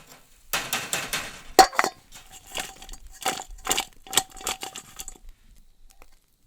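Metal barbecue utensil scraping and clinking against metal cookware or a grill, a run of short strokes, several with a ringing metallic note, stopping about five seconds in.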